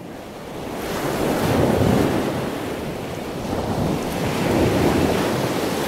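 Rushing, surf-like noise that fades in, swells about two seconds in, eases, then swells again about five seconds in, like waves washing in twice.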